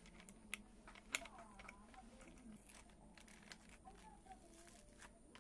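Quiet handling noises: scattered light clicks and taps of an angle grinder and its flap disc being handled with gloved hands, the sharpest tap about a second in. The grinder is not running.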